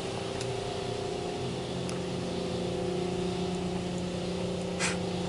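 PDQ Tandem automatic car wash machinery heard from inside the car: a steady hum of motors and pumps with a hiss of water spray. A deeper tone joins about a second and a half in, and there is a short hiss near the end.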